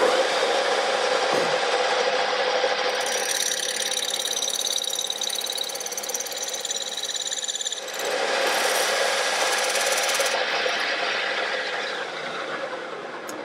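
Metal lathe running with its chuck spinning while a cutting tool faces the end of a steel pipe to a sharp edge. A high whine of the cutter on the steel comes in about three seconds in and stops about ten seconds in, and the lathe spins down near the end.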